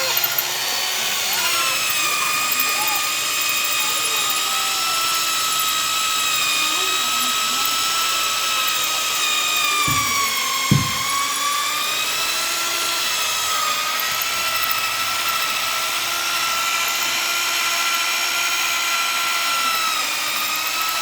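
Electric drill running steadily as it bores a hole in iron, a whine of several stacked tones. About halfway through, the pitch sags for a couple of seconds and then recovers, with two short knocks just before.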